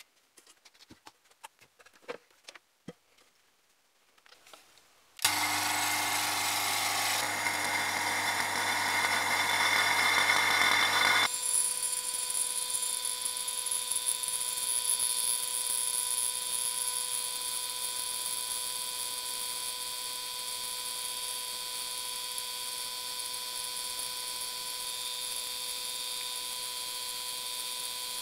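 A few light taps, then an electric vacuum pump switches on abruptly about five seconds in and runs steadily, pulling a vacuum on epoxy resin to draw the bubbles out. About eleven seconds in the sound jumps to a higher-pitched whine and hiss, the pump played back at five times speed.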